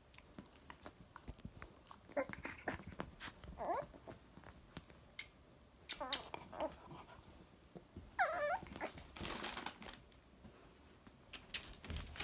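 Cockapoo puppy at play, giving about four short, high whimpering yips that bend in pitch, among light scuffling and rustling on a quilted bedspread.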